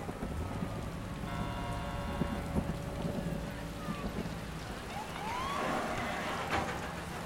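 Steady heavy rain falling, heard around a moving car, with a low rumble underneath. A brief held tone sounds about a second in.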